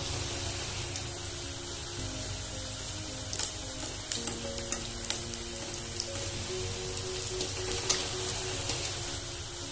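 Ring samosa deep-frying in hot oil in a kadhai: a steady sizzle with scattered sharp crackles. Background music of held, shifting notes plays under it.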